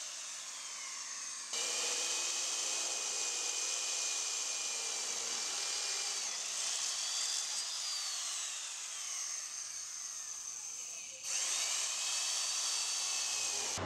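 Corded handheld electric drill boring holes through a metal plate, its motor whine rising and falling in pitch. It grows louder about a second and a half in, eases briefly, then picks up again near the end.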